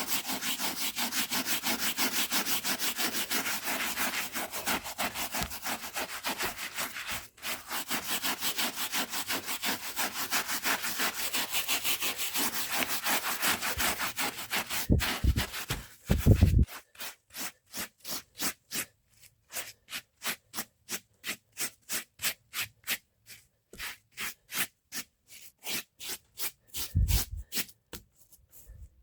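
Stiff hand brush scrubbing the fibres of a rug: fast, even back-and-forth strokes for about the first half, then slower, separate strokes with short gaps, and a few dull thumps in between.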